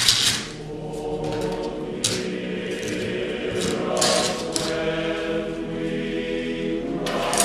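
Background choral music: a choir singing slow, held notes.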